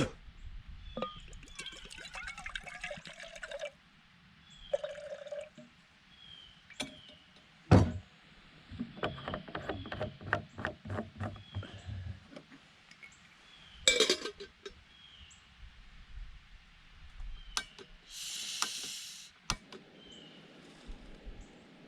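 Clicks and knocks of things being handled, then liquid being poured for about a second and a half near the end. A faint short chirp repeats about once a second throughout.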